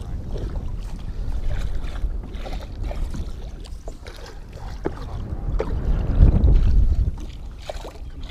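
Wind buffeting the microphone on an open fishing boat, a low rumble with water slapping the hull and scattered light knocks. A gust swells to the loudest point about six seconds in.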